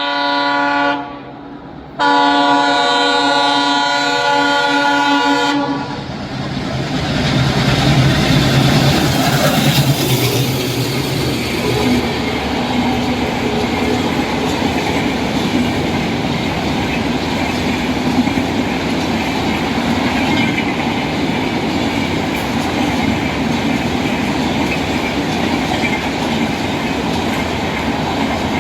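Indian Railways locomotive horn blowing a multi-tone blast that stops about a second in, then a second long blast of nearly four seconds. After that comes the steady rumble and wheel clatter of the express train passing close by.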